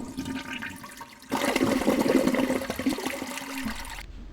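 Water rushing and gurgling, with a louder surge about a second in that fades away near the end.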